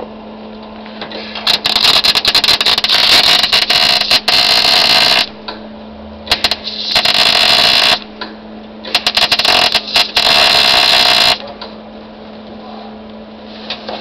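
Welding arc crackling and sizzling as new steel floor pans are welded into a car body, in three runs: a long one of about three and a half seconds, a short one, and another of about two and a half seconds, each starting and stopping abruptly.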